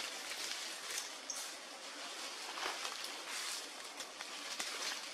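Outdoor forest background: a steady hiss with scattered soft rustles and a few faint clicks.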